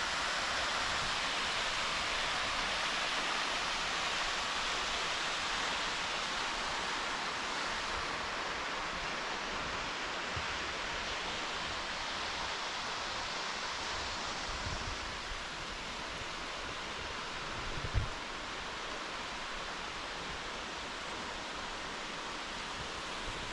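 Steady rush of flowing creek water, easing slightly over time, with a dull low thump about eighteen seconds in.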